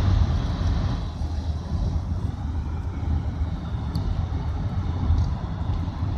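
Steady low rumble of a moving vehicle, heard from inside it, with a faint click about four seconds in.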